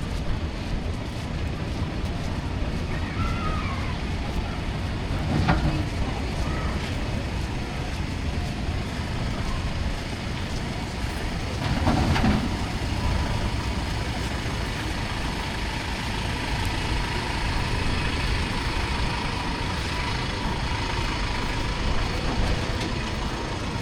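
Steady outdoor background noise, heaviest in the low end, with two brief louder sounds about five and twelve seconds in.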